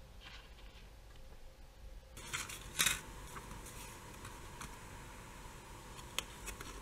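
Paper leaflets and a small card being handled: a burst of rustling and crinkling near three seconds in, then a few light ticks and taps, a sharper one near the end.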